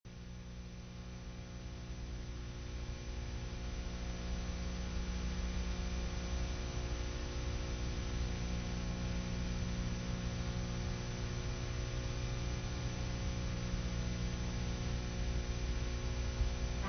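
Steady electrical mains hum with hiss from an old videotape's audio track. It grows slowly louder over the first few seconds, then holds steady.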